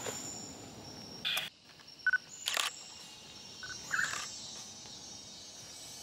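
DSLR camera shutter firing three times, short sharp clicks about a second apart, with a few brief single high notes between them over faint forest ambience.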